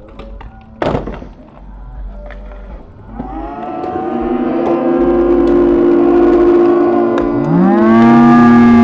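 A Onewheel lands with a sharp knock about a second in. Then several spectators' voices join in a long, drawn-out 'ooooh' that swells louder and, near the end, rises and falls in pitch.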